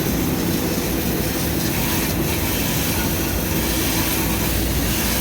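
Air-conditioning condensing unit running steadily with its condenser fan motor missing, the compressor still running under a continuous mechanical whir and a faint steady hum.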